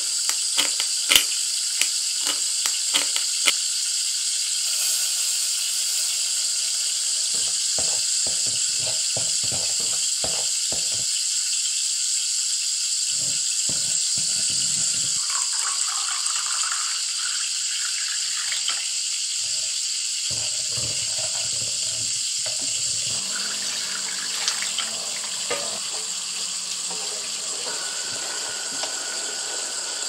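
Diced onions and sliced shiitake mushrooms sizzling steadily in a frying pan, with a few sharp utensil taps near the start. About halfway through, liquid is poured into the pan, followed by stirring and scraping.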